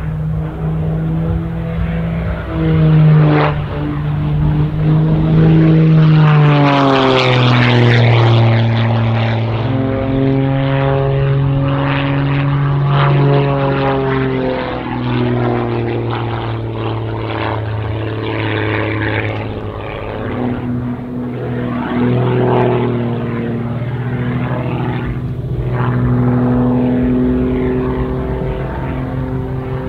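Zivko Edge 540T aerobatic plane's six-cylinder Lycoming piston engine and propeller during a display, its pitch shifting up and down as power and airspeed change through the manoeuvres. A long falling glide comes about seven seconds in, at the loudest part.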